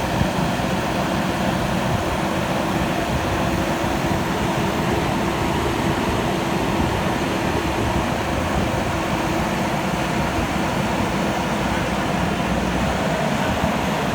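JCB backhoe loader's diesel engine running steadily, with a constant hum and low rumble.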